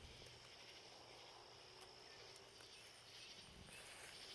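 Near silence with faint, steady high-pitched insect trilling in the background.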